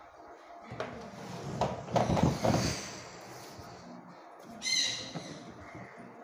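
Knocks and rattling as a metal tin of poster colours is handled on a wooden table, loudest about two seconds in, followed by a short high squeak near the five-second mark.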